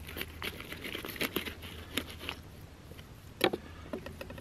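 A fresh fish being scraped and cut on a plastic cutting board: a series of short scratchy, crunching strokes, then one louder sharp crunch about three and a half seconds in.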